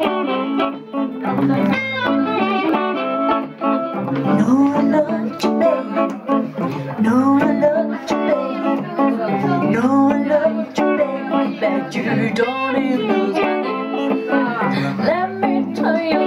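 Live blues played by a small combo: a hollow-body electric guitar plays throughout, and a woman's voice comes in singing over it about four seconds in.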